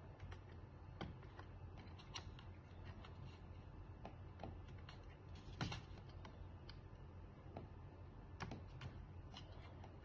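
Faint, scattered small clicks and handling sounds over a low steady hum, with the loudest click a little past halfway.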